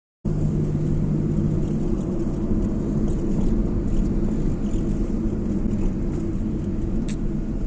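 A car driving: steady low rumble of engine and road noise, with a low hum that fades out about halfway through.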